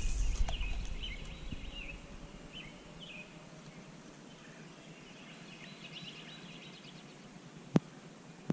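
Birds chirping in short calls over a low rumble on the microphone that fades after the first second or so. A single sharp click sounds near the end.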